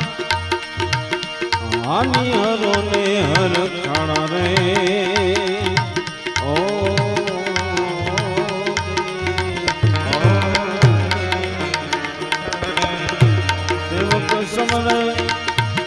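Live Indian devotional song: a man singing long held, wavering notes over a harmonium, with tabla keeping the rhythm and a few deep bass-drum strokes that ring on.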